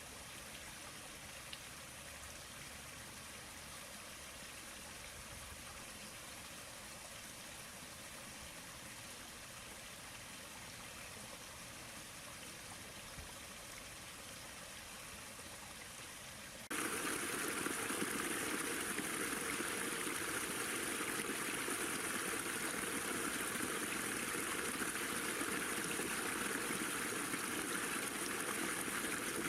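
Water running and trickling over the rocks of a backyard pondless waterfall, a steady rush. About halfway through it cuts suddenly to a louder, fuller rush of falling water.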